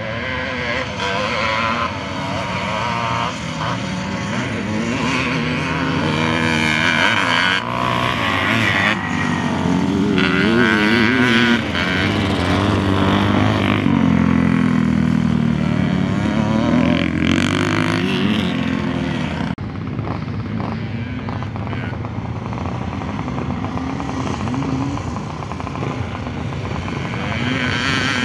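Several classic motocross bikes racing on a dirt track, their engines revving up and falling away as they pass, with overlapping engine notes. There is a short drop in level about two-thirds of the way through.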